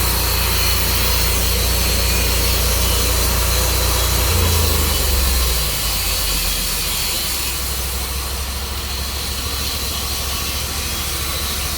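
Sawmill engine idling steadily under a constant hiss; its low hum shifts and drops away about five to six seconds in.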